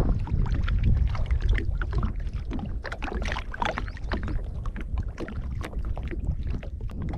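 Small waves lapping and slapping against a plastic kayak's hull in irregular little splashes and ticks, over a steady low wind rumble on the microphone.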